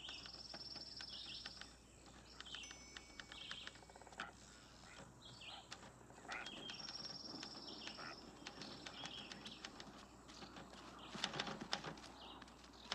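Faint woodland ambience: birds trilling and chirping over a low insect hum. Near the end comes a quick run of sharp clicks from a manual typewriter's keys.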